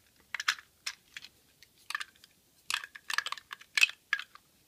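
Lego Duplo plastic bricks and wagon being handled and fitted together: an irregular run of sharp plastic clicks and clacks.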